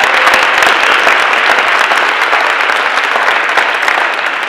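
A large audience applauding: many hands clapping steadily together in a hall.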